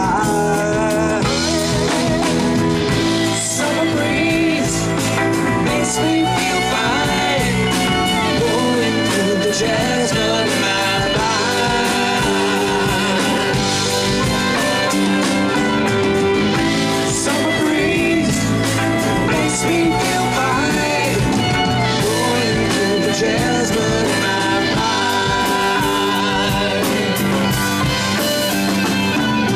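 Live rock band playing through amplifiers and a PA: electric guitars, bass guitar, drum kit and keyboard, with a man singing lead at times.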